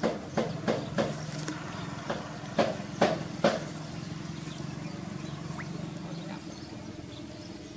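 Monkey paddling through shallow water, splashing about three strokes a second. Three louder splashes come about three seconds in, then the strokes stop. A steady motor hum runs underneath throughout.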